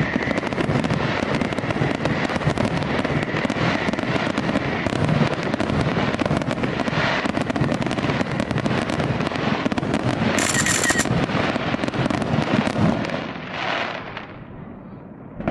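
Fireworks going off in a dense, continuous barrage of rapid bangs and crackles, thinning out and dying away about 13 to 14 seconds in, with a fresh bang right at the end.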